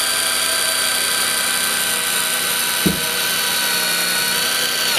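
Cordless impact driver spinning a 6 mm spear-point multi-material drill bit through an acrylic sheet: a steady motor whine at constant speed that cuts off just before the end. A brief low knock comes about three seconds in.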